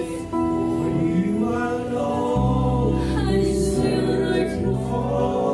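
Live praise-and-worship song: a woman singing lead with men's voices backing her over held keyboard chords, and a deep bass note coming in about two seconds in.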